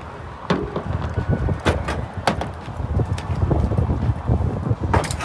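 Wind buffeting the microphone, with a few sharp clicks and knocks as a pickup truck's tailgate is opened and handled, and a louder rattling burst near the end.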